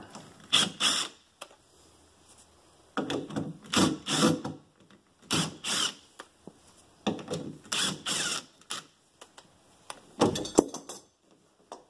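Cordless impact driver backing out loose screws from a door hinge's stripped holes, run in about five short bursts with pauses between them.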